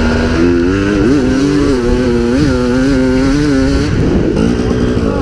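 Two-stroke KTM EXC enduro motorcycle engine running hard at a steady high note, with three quick upward throttle blips in the first half; about four seconds in the steady note breaks off and the engine sound turns rougher.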